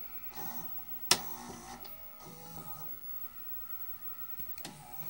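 Admiral VHS VCR's tape transport mechanism being switched between modes by remote: one sharp mechanical click about a second in, with short bursts of whirring and faint scrambled sound around it.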